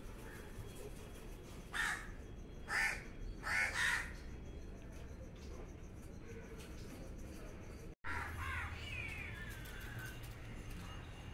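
A crow cawing three times, harsh calls about two, three and four seconds in. About eight and a half seconds in comes a short cry falling in pitch.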